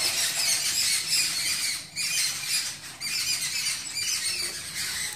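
Dense, continuous high-pitched chirping and squeaking, with brief breaks about two and three seconds in.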